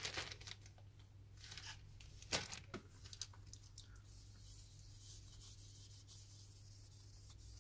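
Faint, brief rubbing and scraping strokes as dust is wiped or lifted off a tablet's screen panel, a few in the first three seconds, then a low steady hum.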